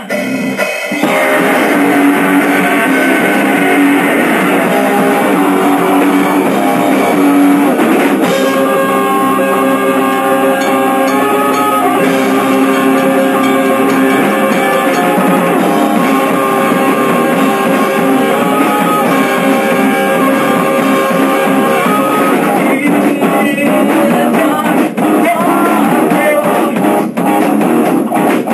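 Rock band playing live: electric guitar over a drum kit, a steady full-band groove.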